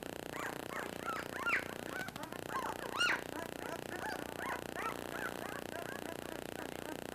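Thirteen-day-old German shepherd puppies squeaking and whimpering: many short, high, overlapping calls that rise and fall, the loudest about three seconds in.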